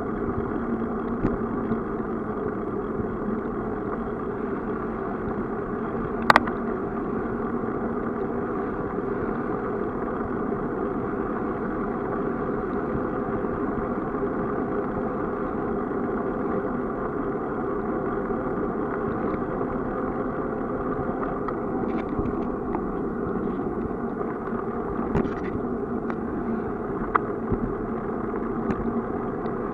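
Steady rumble of a bicycle rolling along an asphalt cycle path. There is a sharp knock about six seconds in and a few lighter clicks near the end.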